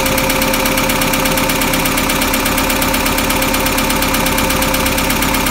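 International Harvester 152 slant-four engine idling steadily while its carburettor idle mixture is being set, pulling about 22 inches of vacuum.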